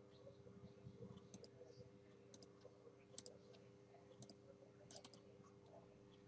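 Faint computer mouse clicks, several in quick pairs like double-clicks, over a faint steady hum.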